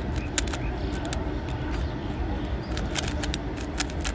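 Plastic 3x3 Rubik's cube being turned quickly by hand, its layers clicking in short irregular runs during a timed solve. A steady low rumble and a faint hum run underneath.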